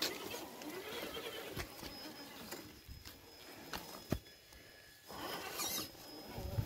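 A Traxxas TRX4 Defender RC crawler's electric motor and gearbox whine, rising and falling in pitch with the throttle, as the truck crawls over mud and rock. There is a sharp knock about four seconds in.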